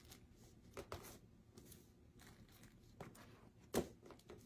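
Faint handling sounds of hands laying thin slices of cream cheese from a flexible plastic cutting board into a plastic-lined slow cooker: a few soft taps and light rustles, the loudest tap near the end.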